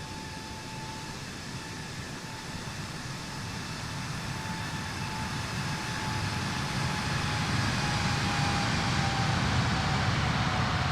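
Jet airliner's engines at takeoff thrust: a broad roar with a thin steady whine over it, growing louder, the whine dropping slightly in pitch near the end.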